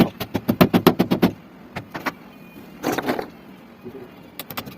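A rapid series of sharp clicks or knocks, about nine or ten a second, in bursts: one over the first second or so, a short one about three seconds in, and another starting near the end.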